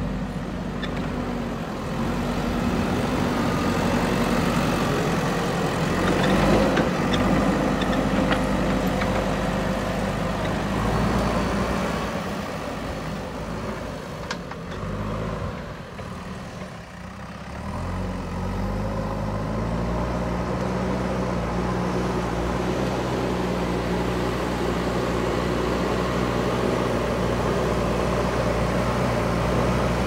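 JCB 3DX backhoe loader's diesel engine running under load as the machine drives and pushes soil with its front bucket. The engine eases off a little past halfway, then revs up again and holds a steady working pitch.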